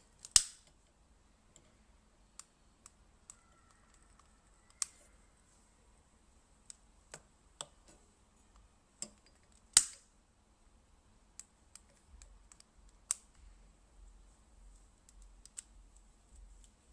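Sharp, irregular clicks of a long stick lighter being triggered to light tealight candles. The two loudest clicks come about half a second in and near ten seconds in.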